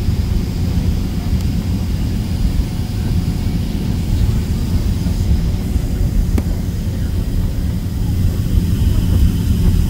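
Cabin noise inside a Boeing 767-300 airliner taxiing onto the runway: a steady low rumble of the jet engines and airframe with a faint high whine above it, growing slightly louder near the end.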